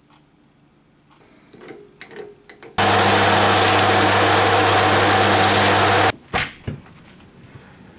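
A workshop power tool running steadily for about three seconds: a loud hiss over a steady low hum, starting and stopping abruptly. Light clicks and knocks of handling come before and after it.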